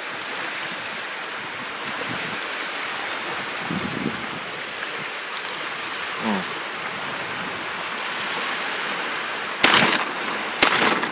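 Wind and small waves lapping against the shore, then two shotgun shots about a second apart near the end, fired at a duck coming in over the decoys.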